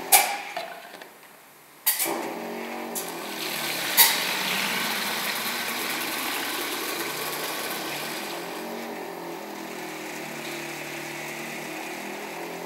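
Filamatic DAB-A-32-2 air-operated liquid filling machine running a fill cycle. Sharp pneumatic hisses come just after the start, at about two seconds and again at about four seconds. Between them and after, the machine runs steadily as liquid is filled into plastic bottles.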